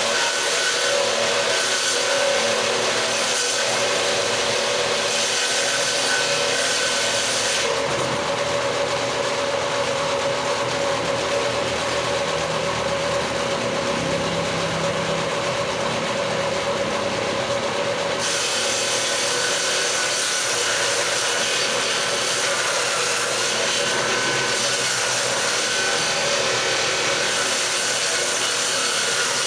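Handheld electric power tool running continuously as it cuts wood along a door jamb, with a steady motor whine; from about 8 to 18 seconds in the sound turns duller, then brightens again.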